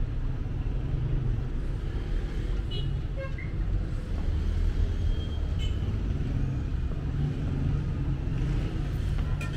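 Road traffic: a steady low rumble of cars passing along a city street. A few faint short high sounds occur about three seconds in.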